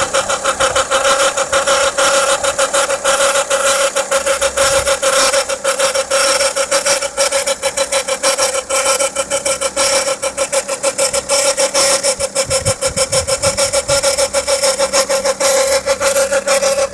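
Volvo V50 engine running with a steady whine and a fast, even rasping like something rubbing: the abnormal noise that appeared after its timing belt was replaced.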